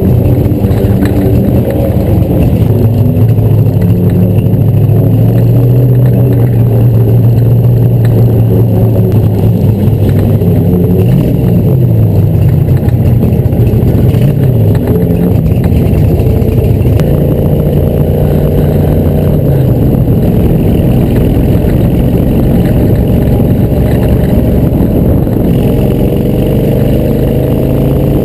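The Ford flathead V8 of a 1952 Streets Manning Special race car, heard loud from on board as it drives at low speed, its pitch dipping and climbing again about eleven seconds in and rising again later as it speeds up.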